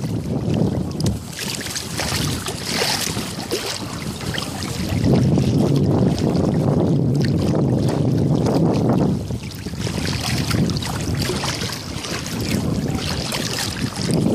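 Wind buffeting the phone's microphone in gusts, over the sloshing and splashing of legs wading through shallow sea water.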